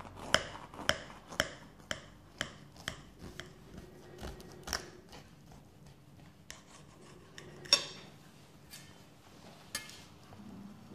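Kitchen knife sawing through the baked pastry crust of a pie, a sharp scraping crunch about twice a second for the first few seconds. Then a few separate clicks and knocks, the loudest about three quarters of the way in.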